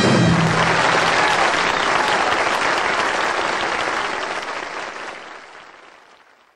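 Applause from a crowd, starting as the song's last note ends and fading out over the final couple of seconds.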